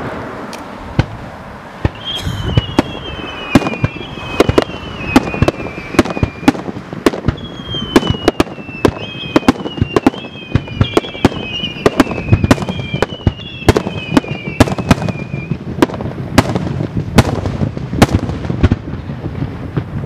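Fireworks display: dozens of sharp bangs from aerial shells going off, with a run of whistling fireworks whose whistles each fall in pitch, starting about two seconds in and stopping a few seconds before the end.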